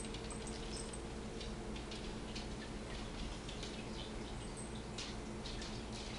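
1937 Air King tube radio switched on but playing no station: a low mains hum with faint, irregular ticks and crackles while its dial is turned. The set has failed, which the owner puts down to a burnt-out 25L6 audio output tube.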